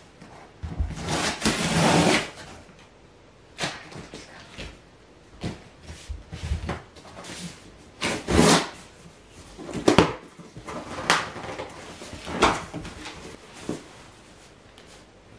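Rummaging through cardboard moving boxes for clothes: cardboard flaps and packed things rustling, scraping and bumping in irregular bursts, with a few sharp knocks and a longer rustle about a second in.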